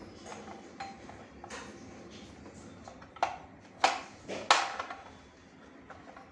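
Handling noise from working on the bell wiring: a handful of sharp clicks and knocks, the loudest three a little after three, four and four and a half seconds in, some with a short, light metallic ring.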